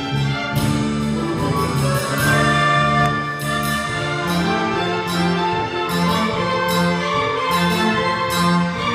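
Symphony orchestra playing, strings to the fore with bass notes moving in a steady rhythm beneath.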